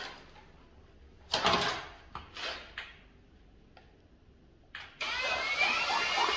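Cordless drill driving a Malco Turbo Shear head through sheet metal: after a couple of short bursts, the drill starts running steadily about five seconds in, its motor whine rising a little as it spins up, over a rapid chattering from the shear cutting the metal.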